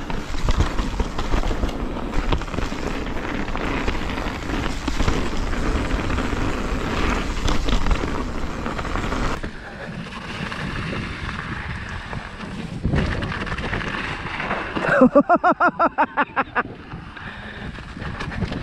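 Mountain bike rolling fast down a rocky, snowy trail: a dense rush of tyre noise, rattle and wind buffeting the microphone, easing a little about halfway. Near the end a rider lets out a warbling shout, about eight quick pulses over a second and a half.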